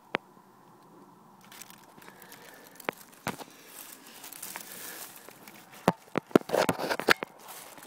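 Handling noise: rustling and scattered sharp clicks from a hand and a hand-held phone brushing against rubber hoses, wiring and connectors under a snowmobile's hood. It is quiet at first with a few clicks, then grows busier from about four seconds in, with a dense run of clicks around six to seven seconds.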